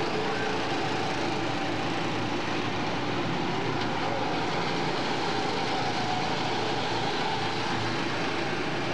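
Small go-kart engines running steadily as several karts race past on the track.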